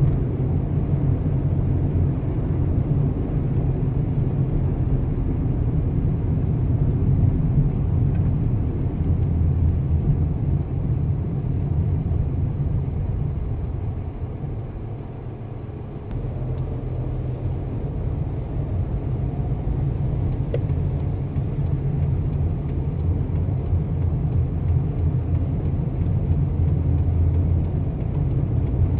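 A car driving on city roads: a steady low rumble of engine and road noise that sags for a couple of seconds about halfway through, then builds again. A faint, regular ticking, about two to three ticks a second, joins it for the last third.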